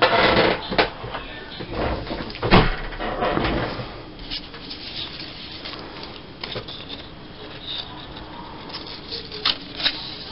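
Paper scraps and strips being handled on a tabletop: rustling and shuffling, with a sharp thump about two and a half seconds in, then lighter scattered handling sounds.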